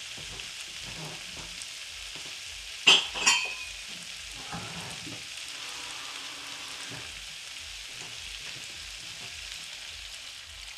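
Tomatoes and spices frying in a pan with a steady sizzle, the base of a shakshuka. Two sharp knocks come about three seconds in, and near the end water is poured into the pan.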